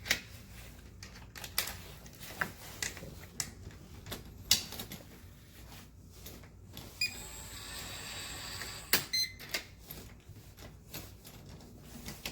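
Scattered light clicks and taps, irregular and a few seconds apart, with a faint steady high whine for about two seconds near the middle.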